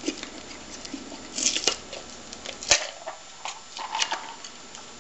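Rustling and scraping of cardboard and masking tape as the copper top plate and cardboard displacer of a homemade Stirling engine are pulled out of its tape-sealed cardboard chamber, with one sharp click a little past halfway.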